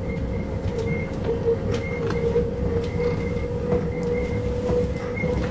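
Inside an electric city bus on the move: the electric drive's steady whine over low road rumble, with scattered small rattles and clicks from the cabin.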